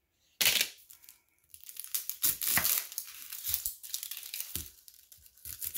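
A knife cuts through a yellow onion on a wooden cutting board, with a few knocks of the blade on the board. The onion's dry, papery skin crackles and tears as it is cut and peeled.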